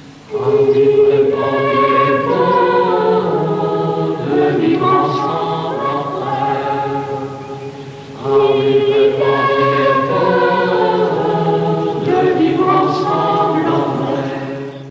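A mixed choir of men's and women's voices singing together in two long phrases, the second starting about eight seconds in.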